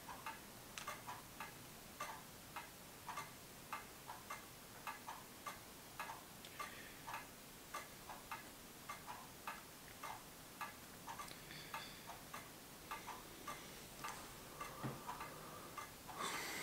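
Faint clock ticking at a steady pace of about two ticks a second, with a short burst of rustling near the end.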